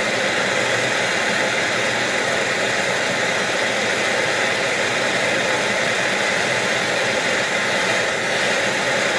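Handheld gas torch burning with a steady hiss, its flame held on an aluminium wastegate part to loosen the threadlocker on its thread.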